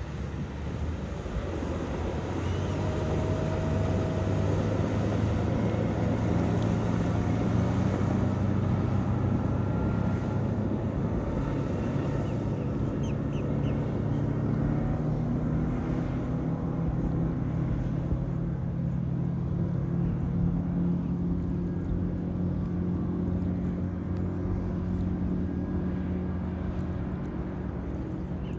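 Mercury 150 outboard motor running with the boat under way, getting louder over the first few seconds and then holding a steady pitch.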